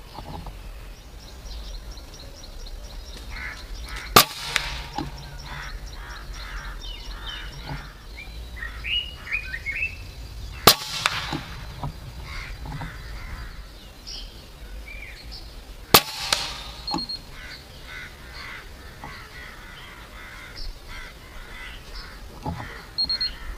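Crows cawing repeatedly from the trees, broken by three sharp, loud cracks of a .25-calibre PCP air rifle (Avenger) firing, spaced several seconds apart.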